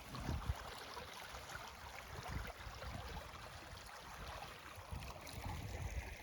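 Creek water running steadily over a low, rocky streambed, with irregular low rumbles and bumps on the microphone.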